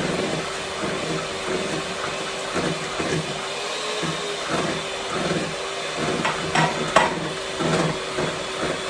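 Electric mixer running steadily, beating cake batter in a bowl, with a regular pulsing as the beaters move through the batter. A couple of sharp clinks come about two-thirds of the way through.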